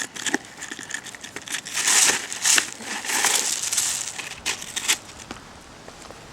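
English bulldog gnawing a large rawhide bone: irregular crackling and crunching with sharp clicks, heaviest in the middle and dying away near the end.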